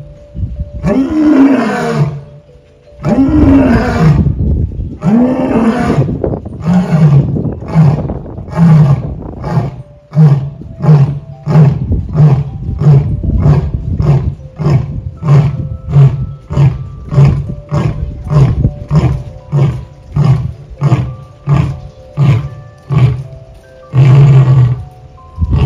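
Male lion roaring: a few long moaning roars, then a long run of short grunts just under a second apart, with a last louder grunt near the end.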